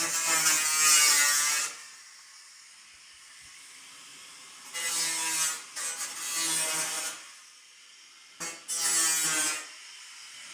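Angle grinder cutting metal through the roof, in three bursts with pauses between: about a second and a half, two and a half seconds, then a second. The motor gives a high whine under the hiss of the cut.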